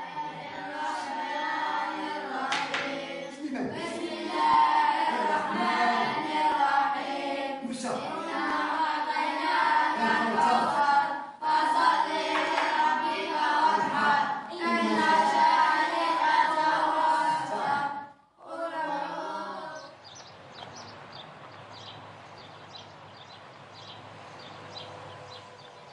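A group of boys chanting Quranic verses together in unison for about twenty seconds, pausing briefly twice. The chanting then stops, leaving a quiet background with faint high chirps.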